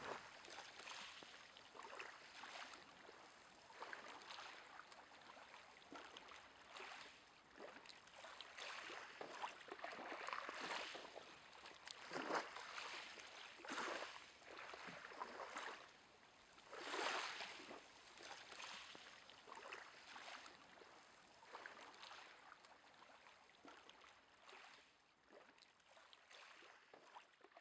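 Faint, irregular water sloshing and splashing that comes in uneven swells, the loudest about 17 seconds in.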